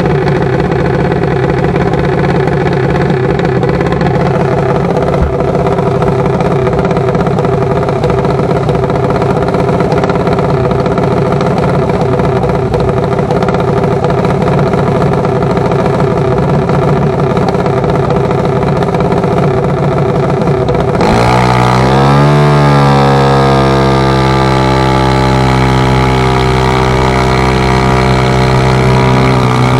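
Junior dragster's single-cylinder methanol engine idling at the starting line, then about two-thirds of the way through it revs up sharply and holds at high revs as the car launches on its pass.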